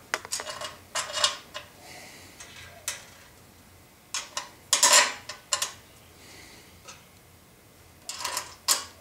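Metal clinks and scrapes as bolts are fitted by hand into the countersunk holes of a steel table-saw fence guide rail, in several short clusters, the loudest about five seconds in.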